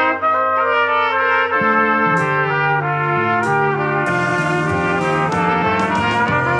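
Trumpet trio playing held notes in harmony over a pop backing track. A bass line enters about one and a half seconds in, with cymbal strikes.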